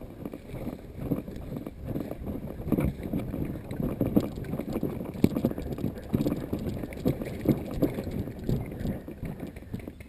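Someone moving on foot through tall weeds: an irregular rustle of stalks and leaves brushing past, mixed with footfalls and knocks on the microphone.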